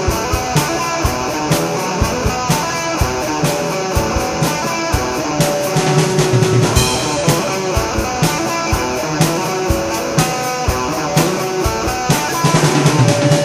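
Instrumental rock music: guitar and drum kit playing together, with sharp drum hits at a regular beat.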